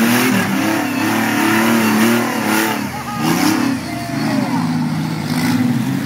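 Rock-crawling race buggy's engine revving up and down in bursts as it climbs over boulders, the revs dropping briefly about three seconds in.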